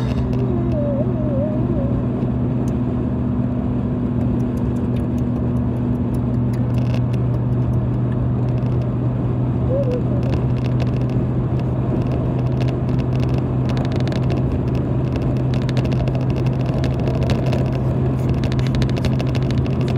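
Steady road noise of a moving car heard from inside the cabin: a constant low drone of engine and tyres, with a few faint ticks near the end.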